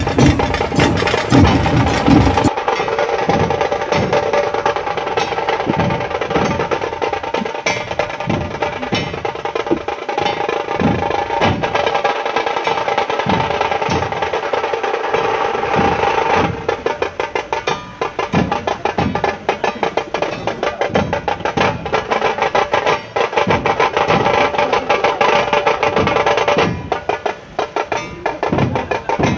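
Music with fast, steady drumming under a held melodic line. The melody thins out about halfway through and again near the end, leaving mostly the drum strokes.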